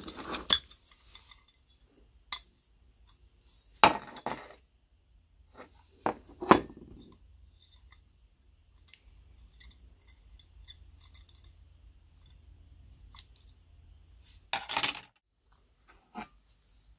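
Scattered metal clinks and knocks as small kerosene-stove parts, the toothed wick-adjuster spindles among them, are handled and set down on a wooden workbench. The loudest knocks come about 4 and 6.5 seconds in, with a half-second clatter near 15 seconds.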